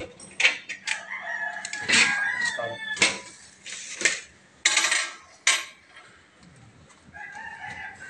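Clanks and rattles of a perforated sheet-metal cabinet cover being swung open and handled, several sharp knocks over the first five seconds. A bird calls in the background, a drawn-out wavering call near the start and again near the end.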